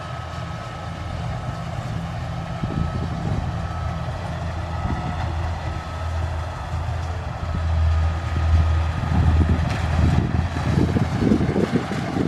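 A Kubota rice combine harvester's diesel engine running steadily with a faint whine, growing louder with irregular heavy rumbling from about ten seconds in.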